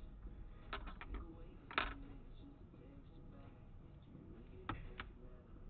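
Faint small clicks and taps from handling small phone-repair parts and tools: a few quick clicks about a second in, a sharper tap near two seconds, and two more clicks near the end.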